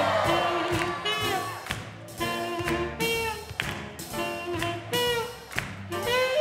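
Live swing jazz band playing an up-tempo tune with a steady beat, drums, upright bass and piano under bending horn-like lines.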